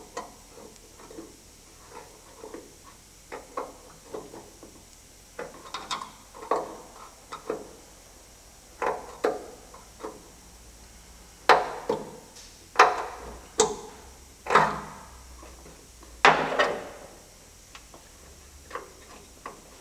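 Small screwdriver prying at the retaining clips on the end fitting of a Porsche Boxster 986 bonnet gas strut: irregular clicks and taps, louder and sharper in the second half.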